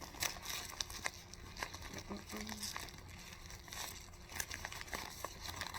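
Packaging crinkling and rustling as it is handled and opened, in a run of small crackles that grow a little louder near the end.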